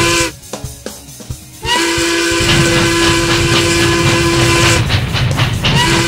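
Steam locomotive whistle blowing in long, steady blasts: one cuts off just after the start, another sounds for about three seconds from a second and a half in, and a third starts near the end, over the low rumble of the train running.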